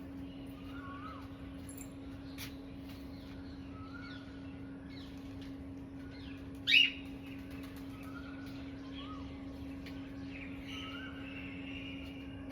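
Small birds chirping, with many short notes and slurs scattered throughout over a steady low hum. A single short, loud, sharp sound with a quick upward sweep comes about two-thirds of the way in.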